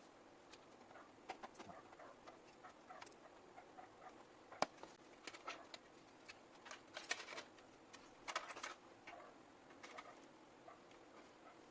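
Faint, irregular clicks and light rustling of small hard parts being handled, with one sharper click a little before the middle and busier bursts of ticking in the second half.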